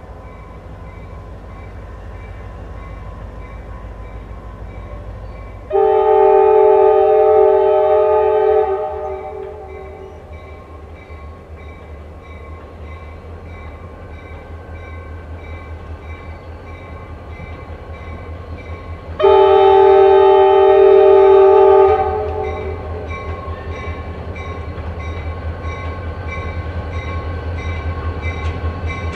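A railroad crossing's General Signals Type 1 electronic bell rings steadily while an approaching locomotive sounds two long chord blasts on its horn, about six and nineteen seconds in. A low rumble grows louder near the end as the train nears.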